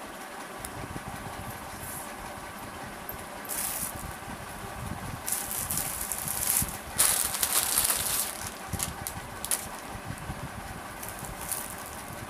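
Clothes and their packaging being handled, rustling in several short bursts, the loudest about seven to eight seconds in, over a steady low background hum.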